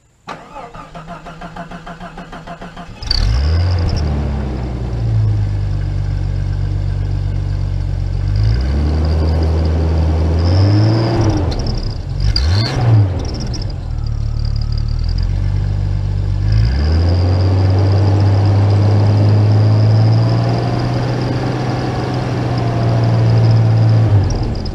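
Jeep engine cranked on the starter for about three seconds, then catching and revved up and down several times, with an exhaust-mounted turbo whistle giving a thin steady high whistle over the engine. The engine stumbles and nearly stalls once partway through. The whistle is bent and damaged, and the owner thinks it no longer works well.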